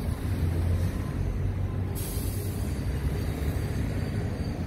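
Heavy road-construction machinery running steadily with a deep engine rumble, and a hiss that starts suddenly about two seconds in and fades over about a second.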